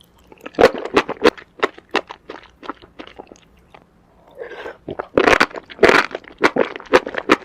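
Close-miked chewing of noodles and enoki mushrooms in fried sauce: a quick, irregular run of wet crunching clicks, with a quieter gap before the middle and a denser, louder cluster soon after.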